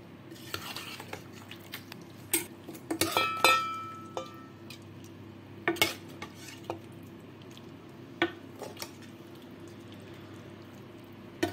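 Steel ladle scraping and clinking against a stainless steel pressure cooker and a steel serving dish as curry is spooned out. Scattered knocks and clinks, the loudest a cluster about three seconds in that rings briefly.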